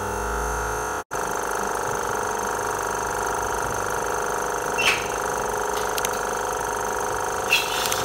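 Electronic background music cuts off about a second in, leaving a small electric pump humming steadily. Two brief, sharper sounds stand out over the hum, at about five seconds and again near the end.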